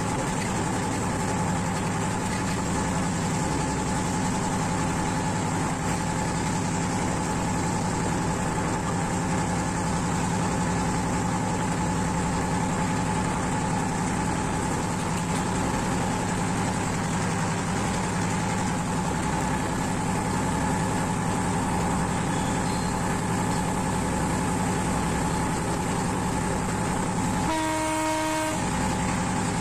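Diesel train running steadily, heard from the cab: a constant engine drone with wheel-on-rail rumble underneath. Near the end the horn sounds one blast of about a second as a tunnel mouth comes up ahead.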